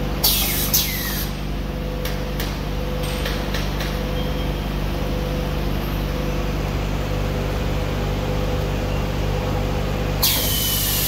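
Kitchen towel roll packing machine running with a steady hum. Twice, once at the start and again about ten seconds in, there is a sharp hiss of air lasting about a second and falling in pitch, typical of its pneumatic cylinders exhausting. A few light clicks come in between.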